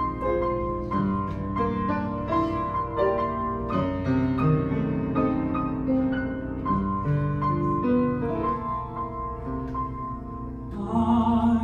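Piano playing a slow ballad introduction, separate notes and chords. Near the end a man starts singing over it.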